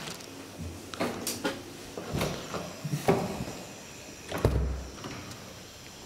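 Clicks and knocks from a lift's doors and door hardware, ending about four and a half seconds in with a heavy thud as the hinged landing door swings shut.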